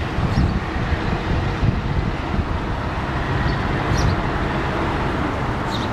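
Steady rumbling outdoor background noise with a few faint, short chirps from a male house sparrow scattered through it, the last near the end.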